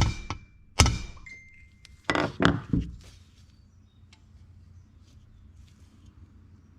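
Dead blow ball-peen hammer tapping a tape-wrapped punch into a crease in stainless steel body side trim, straightening out the dent: about five sharp metallic taps in the first three seconds, the first ones ringing briefly.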